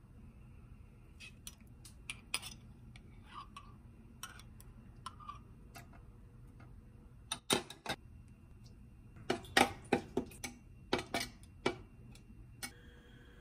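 Metal spoons clinking and tapping against a plastic measuring cup as sauce ingredients are spooned in and stirred: scattered light clicks, with a run of sharper, louder taps in the second half.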